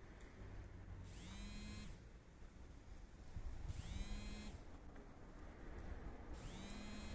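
A small motor whirring in short spells: three brief whirs about two and a half seconds apart, each rising quickly in pitch and then holding steady before it cuts off.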